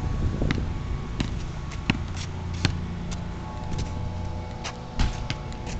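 Basketball bouncing on an asphalt driveway, with running footsteps: a string of irregular thuds and taps over a steady low hum.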